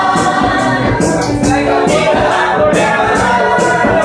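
A group of restaurant cooks and waiters singing together over music with a steady beat.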